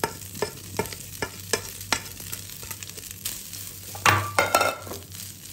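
Rice frying in oil in a wok, sizzling under a silicone spatula that scrapes and taps the pan two or three times a second as the rice is stirred in with fried anchovies. About four seconds in, a louder, busier run of scraping.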